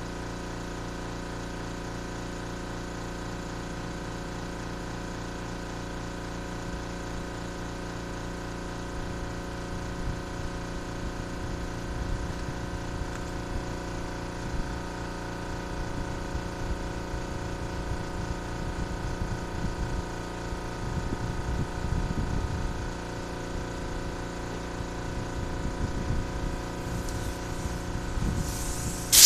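A steady machine hum made of many even tones, with irregular low rumbling and knocks from about seven seconds in. A short spray hiss starts right at the end.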